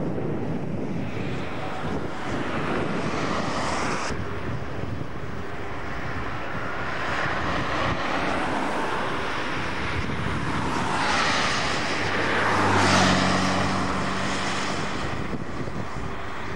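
Road traffic: cars passing one after another on the road close by, tyre and engine noise swelling and fading several times. The loudest pass comes late, with a low engine hum under it.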